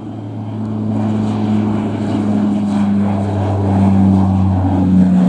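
CASA CN-235's two General Electric CT7 turboprops at take-off power as the aircraft climbs out, a steady low propeller drone that grows louder over the first second or so.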